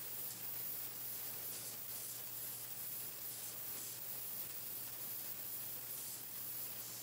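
Pencil painting machine running: a steady hiss with a constant low hum underneath.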